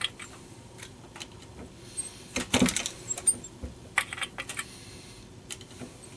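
Sharp metallic clicks and clinks of brass .38 cases being decapped with a Lee universal decapping tool, knocking out the spent primers. A denser run of clinks comes about two and a half seconds in and another about four seconds in.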